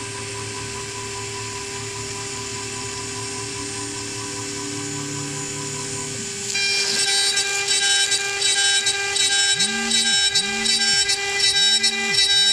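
CNC router spindle whining steadily while its end mill cuts a slot in plastic sheet. About six seconds in, the cutting gets louder and pulses rapidly. Near the end there are four short whirs that rise and fall in pitch.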